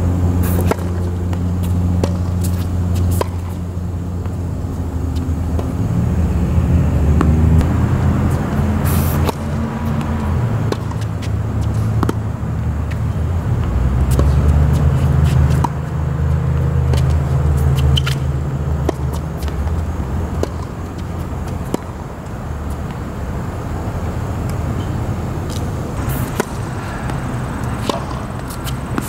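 Tennis balls struck by rackets, sharp pops scattered through a serve and rally, over the loud low drone of a motor vehicle engine running nearby that swells and shifts in pitch.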